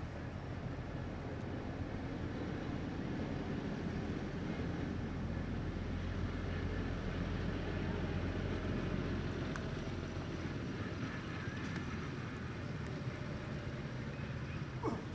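A low, steady engine hum that swells and eases over several seconds, with a short rising squeak just before the end.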